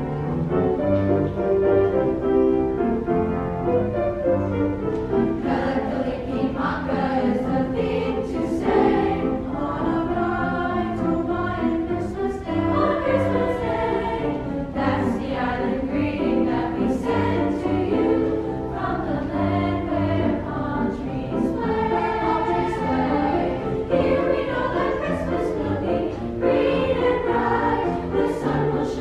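Middle school chorus singing a choral piece together with piano accompaniment.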